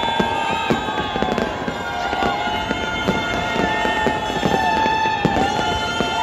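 Fireworks display firing in rapid volleys: dense crackling and popping, with many whistles gliding up and down in pitch over a steady rush of noise.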